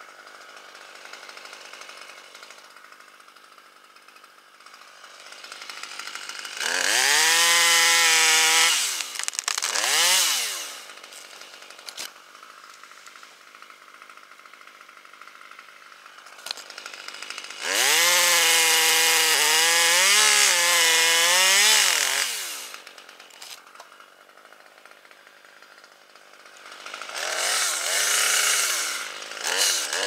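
Top-handle chainsaw revving hard in three bursts, the middle one about four seconds long with its pitch wavering up and down. Between the bursts it runs much quieter.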